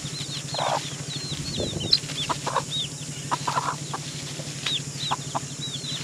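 Domestic chicks peeping in quick, repeated high chirps, with a hen giving a few low clucks among them.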